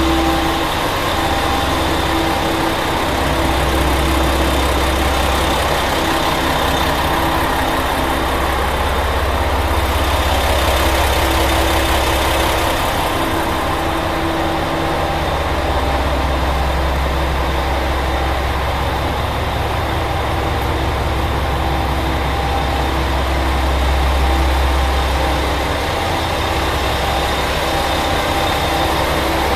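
Diesel engines of a Chizu Express HOT7000 series railcar idling with a steady low drone that swells and eases a little.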